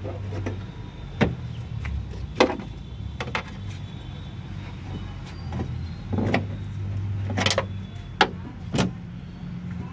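Scattered sharp metal clicks and knocks as the tailgate's key-lock rod and its clips are pried and worked loose by hand inside the door panel, over a steady low hum.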